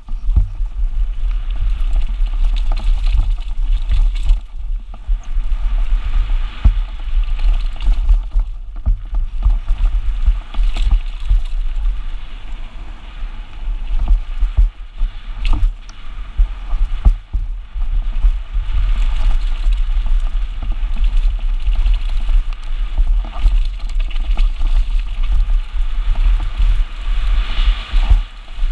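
Mountain bike speeding down a dirt downhill trail: heavy wind buffeting on the microphone, with the bike rattling and clattering over bumps and the tyres rushing on the dirt.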